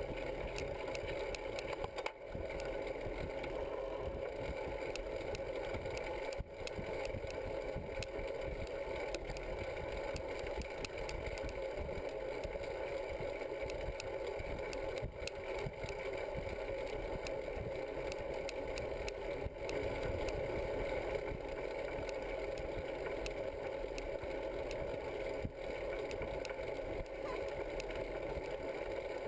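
Steady riding noise picked up by a camera mounted on a moving bicycle: wind on the microphone and tyre noise on the road, dipping briefly a few times.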